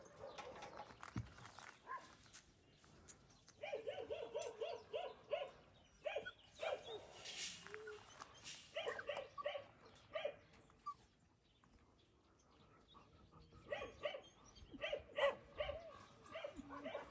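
A dog barking in quick runs of yaps, four bursts of several rapid barks each, with quieter gaps between.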